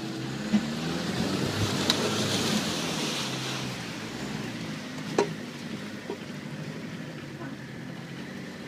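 Off-road vehicle's engine running under load, heard from inside the cabin, as it ploughs through a deep water crossing, with water rushing and splashing over the bodywork and windscreen, heaviest about two to three seconds in. A few sharp knocks from the bumpy track, the loudest about five seconds in.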